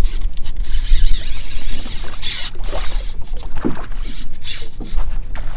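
A kayak on shallow water: irregular splashing and small knocks against the hull, over a steady low rumble and a hiss that swells and fades.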